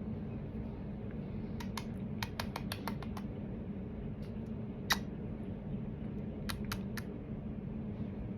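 Short, sharp clicks in bursts: a quick run of about eight, one louder click near the middle, then three more, over a steady low hum.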